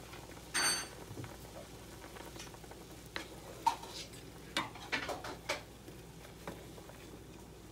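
Quail eggs simmering in a bubbling soy-sauce braise in a nonstick frying pan, stirred with a wooden spoon, which knocks several times against the eggs and pan between about three and five and a half seconds in. A single sharp clink sounds about half a second in.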